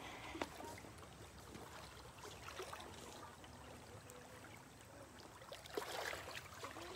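Faint lapping and trickling of small waves among pebbles and boulders at the water's edge, with a slightly louder wash about six seconds in.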